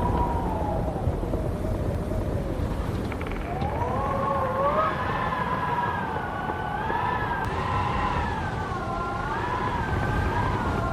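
Howling wind: a wavering whistle that falls away over the first couple of seconds, then another that rises about three and a half seconds in and swings up and down, over a steady low rumble of wind.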